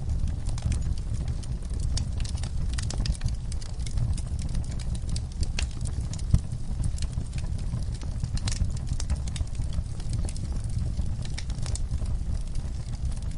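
Wood fire in a fireplace crackling: irregular sharp snaps and pops over a steady low rumble of the flames, with one louder pop about six seconds in.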